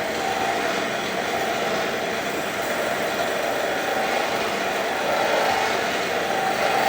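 A machine running steadily with a continuous mechanical drone, getting slightly louder about five seconds in.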